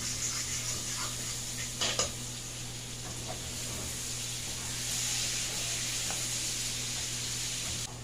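Food sizzling in a frying pan, a steady hiss that grows a little louder about five seconds in, with a sharp clack of a utensil against the pan about two seconds in.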